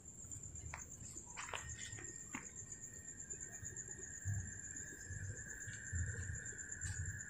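Insects calling: a steady high-pitched trill throughout, joined about one and a half seconds in by a second, lower steady buzz. A few soft clicks and low thumps sound beneath it.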